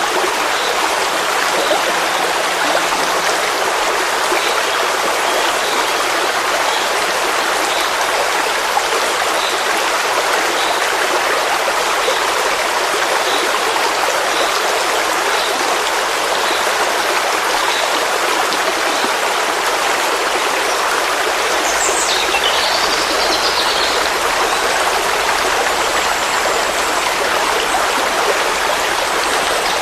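Forest stream flowing steadily, a continuous rush of water. Faint high chirps repeat about once a second through the first half, and a short high falling call comes about two-thirds of the way through.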